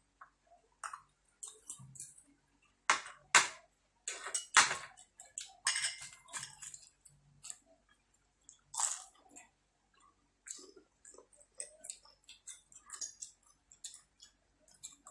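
Close-up eating sounds: people slurping pancit canton noodles and chewing lumpia shanghai, an irregular run of short smacks and clicks, loudest a few seconds in and again about nine seconds in.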